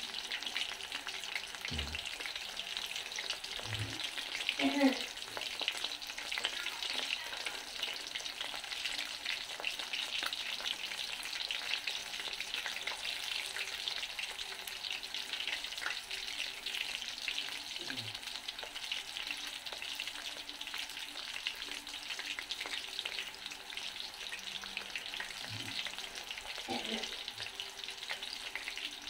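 Breaded chicken drumsticks deep-frying in hot oil in a metal pan: a steady, dense sizzle and crackle of bubbling oil, with a brief louder sound about five seconds in.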